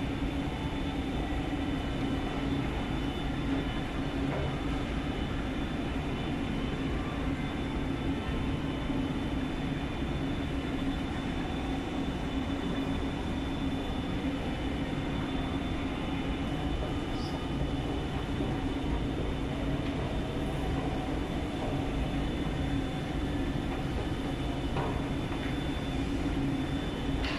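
Steady indoor shopping-mall hum: a constant low mechanical drone with faint steady higher tones, unchanging throughout.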